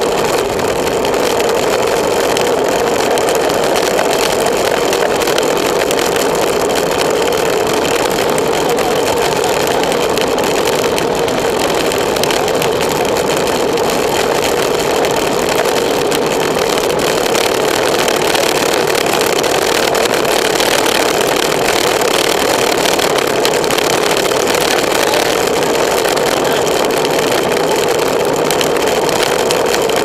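Steady rush of wind over the microphone of a bike-mounted camera on a fast road-bike descent, loud and unbroken.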